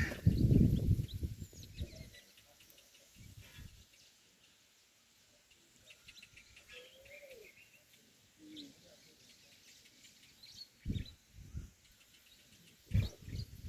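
Birds chirping here and there. A loud low rumble fills the first two seconds, and two short low thumps come near the end.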